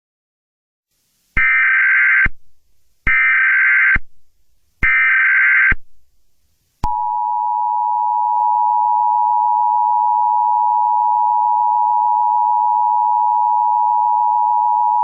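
Emergency Alert System alert tones: three SAME header data bursts of about a second each, a warbling digital screech, encoding a civil danger warning. They are followed by the two-tone attention signal (853 and 960 Hz), a steady harsh dual tone held for about eight seconds.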